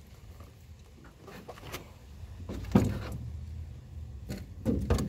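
Scattered knocks and thumps from handling gear in a small boat: the loudest about three seconds in, a pair just before the end, over a low rumble.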